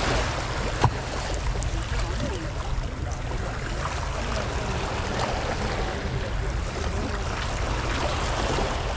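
Steady wind and water noise, with one sharp click a little under a second in.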